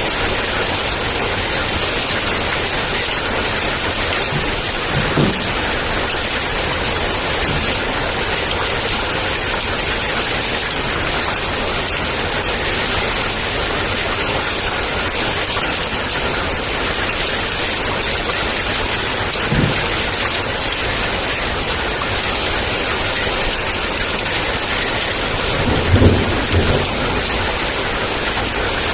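Heavy downpour of rain: a steady, dense hiss. A few short, low thunder rumbles break through it, the loudest near the end.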